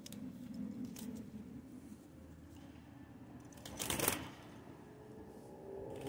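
Wet cockatiel rustling and shaking its feathers, with one louder brief flutter about four seconds in.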